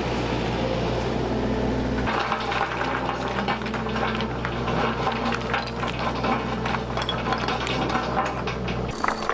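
A hydraulic excavator's engine running with a steady low hum while stones clatter and rattle, as rock is loaded into wire gabion baskets. The clattering becomes dense and irregular about two seconds in.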